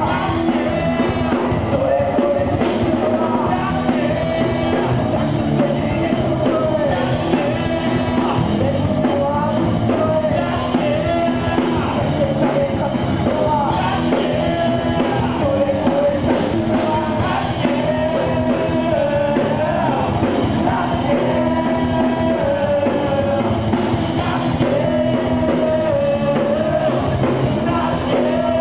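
Rock band playing live: a singer's vocals over electric guitars, bass and drums, loud and steady throughout.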